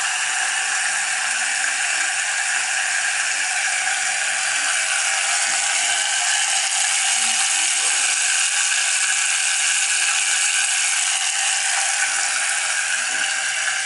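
MK2 battery-powered auto mixer shaker bottle running: its small motor spins the mixing blade in water, making a steady mechanical whir.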